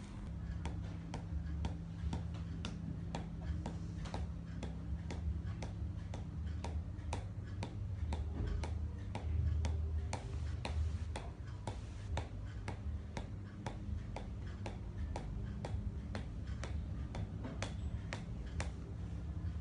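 Tok Sen hammer massage: a hammer tapping a wooden stick held against the body, in a steady rhythm of sharp taps, between two and three a second.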